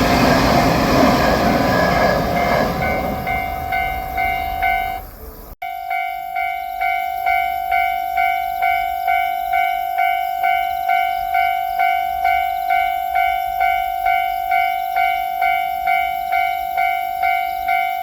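A JR Shikoku 8000 series electric express train runs past with a loud rumble that fades over the first few seconds. Under it, a Japanese railroad crossing's electronic warning bell rings. The sound cuts out abruptly about five and a half seconds in, and after that only the crossing bell is heard, clanging steadily about twice a second.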